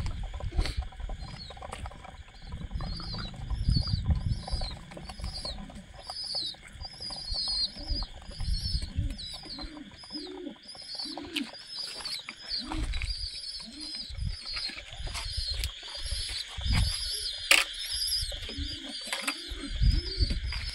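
Domestic pigeons at their grain. Wing flapping and low thumps come in the first few seconds, and from about halfway the birds give low rising-and-falling coos again and again. A high chirping repeats about twice a second throughout.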